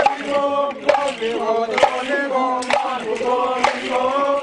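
A group of dancers chanting together in unison, several voices holding long notes. A sharp percussive beat lands about once a second, keeping time.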